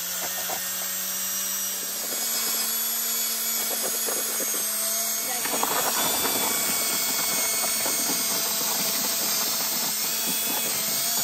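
Cordless 18 V drill with a paddle mixer churning thick plaster in a plastic bucket. The motor hums steadily and rises slightly in pitch about two seconds in, over the wet scraping churn of the mix.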